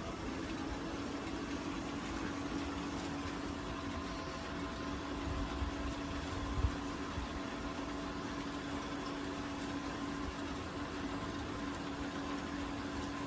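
Electric rotisserie motor humming steadily as it turns the spits, with one soft knock about six and a half seconds in.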